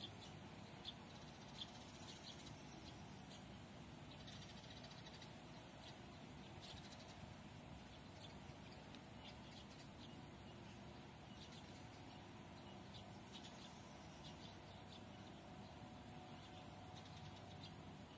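Faint outdoor quiet with scattered short, high bird chirps.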